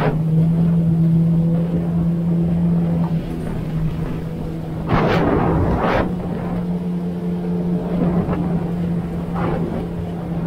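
2019 Yamaha GP1800R WaveRunner's four-stroke engine running at a steady cruising speed, one even engine tone throughout. Short rushes of water noise come over it, the biggest about five seconds in.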